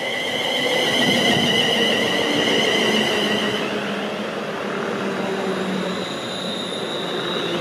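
London Midland Class 350 Desiro electric multiple unit running past along the platform, with wheel rumble on the rails and a high electric whine. The sound is loudest as the train draws level, and the whine changes pitch about halfway through.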